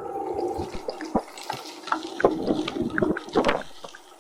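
Water splashing and gurgling in a steady rush, with irregular short splashes throughout.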